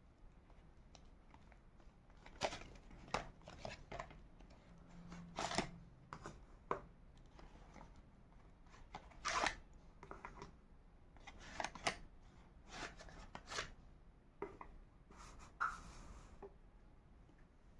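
Colouring on paper: short, irregular scratchy strokes of a colouring tool across the page, some a little louder than others, with pauses between them.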